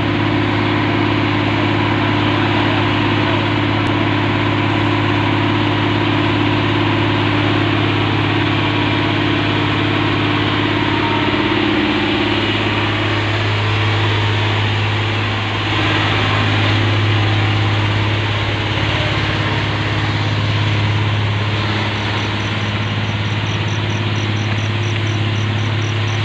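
A fire truck's engine running steadily while it pumps water to the hose: a loud, constant low drone under a continuous rushing hiss. A higher layer of the engine note drops away about halfway through.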